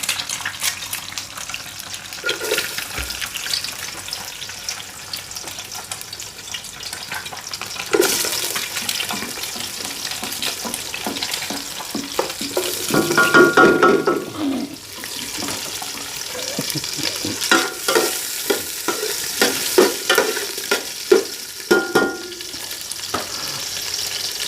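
Food sizzling in hot oil in a pan, the hiss growing louder about a third of the way in as more goes into the oil, with a spatula scraping and clinking against the pan as it is stirred.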